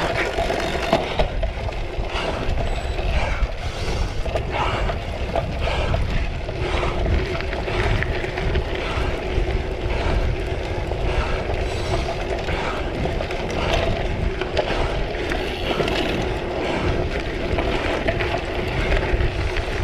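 Cyclocross bike ridden hard over rough ground: wind rushing on the microphone, with frequent rattles and knocks from the bike over bumps.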